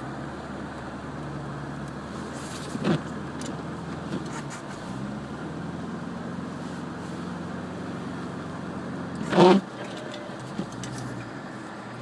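Cabin noise of a 1998 Subaru Legacy Outback driving: a steady engine and road hum, with two brief loud noises, one about three seconds in and a louder one about nine and a half seconds in.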